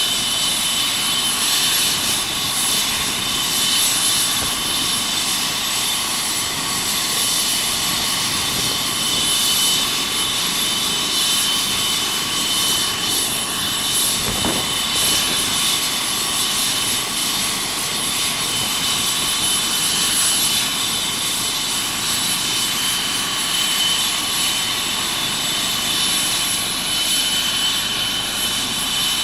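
Eurocopter EC135 air ambulance helicopter running on the ground with its main rotor turning before lift-off: a steady turbine whine with several high tones over the rotor and engine noise, holding level throughout.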